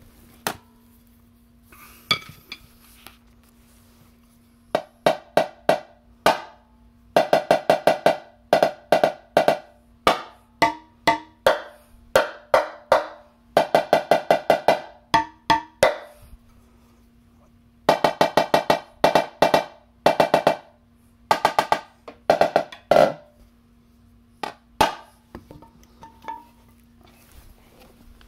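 Top head of a marching snare drum, with its bottom head taken off so there are no snares, struck in quick runs of strokes and short rolls separated by pauses. Each stroke is a sharp hit that rings briefly.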